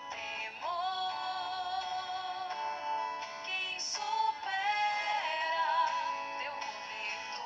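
Worship song: a voice singing long held notes with a slow vibrato over musical accompaniment.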